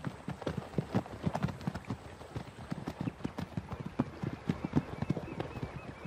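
Many overlapping hoofbeats of a zebra herd moving off across dry, dusty ground, an irregular patter of knocks with no steady rhythm.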